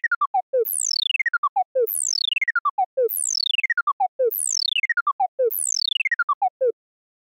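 Electronic synthesized sound effect: a high tone sweeping quickly down in pitch and ending in a few short stepped beeps, repeated six times about once a second. It cuts off abruptly near the end.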